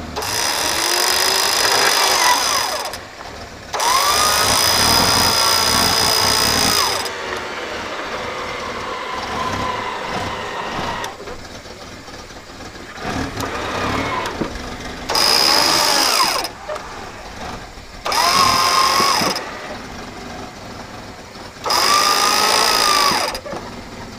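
Electric winch motors on an off-road 4x4 whining in five short runs of one to three seconds each, pulling the vehicle through a ditch; each run's pitch rises and then sags under load. Between runs the vehicle's engine keeps running.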